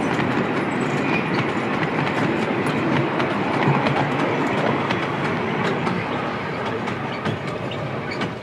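Miniature-railway passenger coaches rolling past close by, their wheels clicking steadily over the rail joints. The sound eases off near the end as the train draws away.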